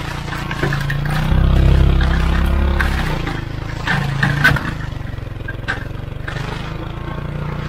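Polaris Ranger 570 UTV engine running steadily under load as it drags a spiked box blade through soil and sticks, swelling louder for about two seconds starting about a second in. Sticks and dirt scraping against the blade's steel teeth give sharp clattering knocks about four seconds in and again near six seconds.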